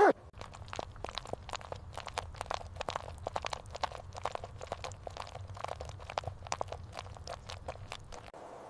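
A dog crunching and chewing on something hard: irregular sharp crunches, several a second, that stop suddenly near the end.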